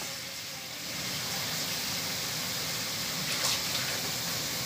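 Minced garlic sizzling in hot oil in a nonstick wok, a steady hiss, with one light tap past the middle.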